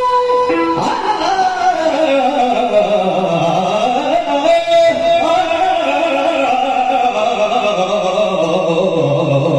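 Yakshagana bhagavata singing: a long held note gives way about a second in to a slow, wavering melodic line.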